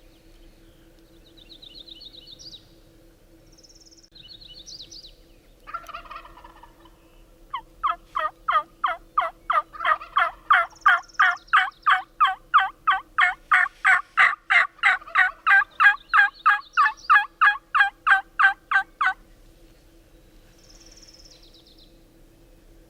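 Wild turkey yelping: a long, loud run of about forty evenly spaced notes at three to four a second that stops abruptly, preceded by a short rattling turkey call about six seconds in. Small songbirds trill faintly near the start.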